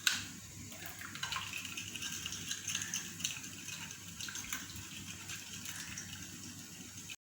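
Spoon stirring warm yeast water in a bowl, mixing until the sugar dissolves: a steady swishing of liquid with light clicks, cutting off suddenly near the end.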